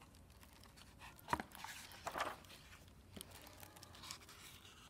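Faint rustle of a hardcover picture book's paper pages being turned by hand, with a light tap about a second in and a few soft clicks of handling afterwards.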